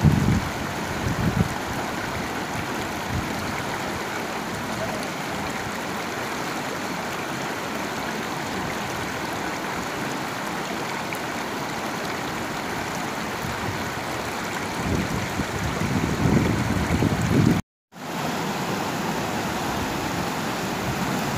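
Rushing river rapids, a steady water noise. Near the end wind buffets the microphone in low surges, and the sound cuts out for a moment.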